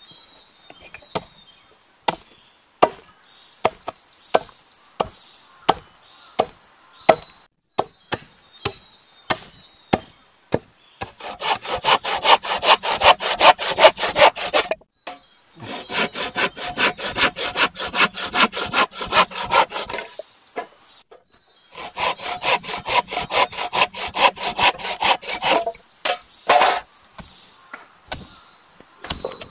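Wood being cut with a hand saw: three spells of quick, rhythmic back-and-forth strokes, each lasting three to five seconds, after about ten seconds of scattered sharp knocks on wood.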